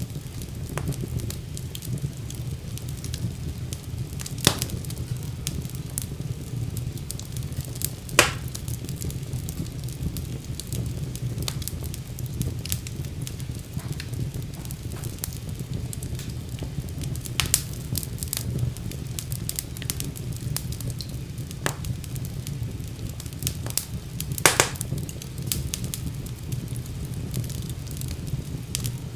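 Fire burning in a fireplace: a steady low rumble of flames with scattered crackles and a few louder pops.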